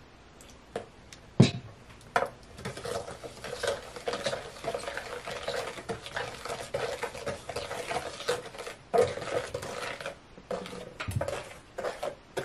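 A spoon stirring and scraping a thick, wet mixture of glue and sand in a plastic tub: steady scraping with small irregular clicks. A single sharp knock, the loudest sound, comes about a second and a half in, just before the stirring starts.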